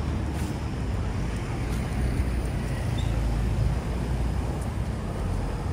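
Steady low rumble of road traffic, cars passing on a busy multi-lane city avenue.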